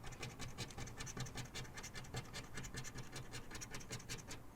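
Scratch-off lottery ticket being scratched, quick repeated short strokes rubbing the coating off the play area.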